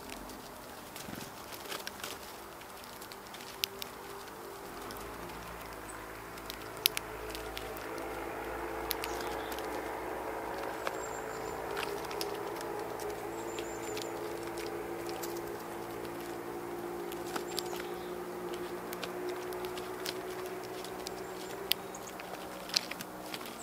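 Birds foraging among wood chips, logs and stumps: scattered sharp taps and pecks, irregular and unevenly spaced. A steady low hum swells up under them through the middle, and a few faint high chirps come in about halfway.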